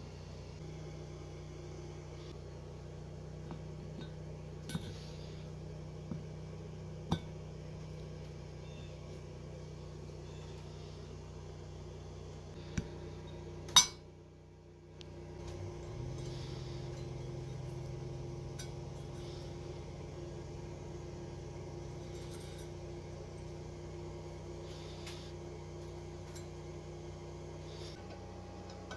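A few scattered sharp clinks and clicks over a steady low hum. The hum drops out for about a second around the middle, then comes back with a low rising tone.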